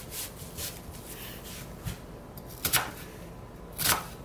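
Kitchen knife cutting through a white onion and knocking on a plastic cutting board: two sharp knocks about a second apart in the second half, with fainter cutting sounds before them.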